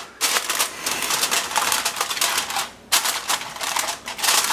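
Aluminium foil crinkling and crackling as it is stretched over a baking pan and pressed down around the rim: a dense run of rapid crackles, with a brief pause just before three seconds in.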